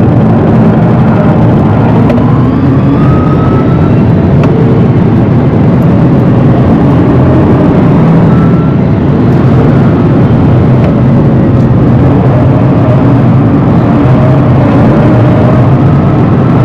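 Rimac Nevera electric hypercar driven hard, heard from inside the cabin: loud, steady road and wind noise with a faint rising whine from its electric motors a couple of times.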